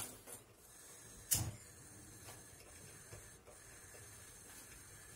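A gas stove burner being lit: one sharp ignition click about a second and a half in, then a faint steady hiss.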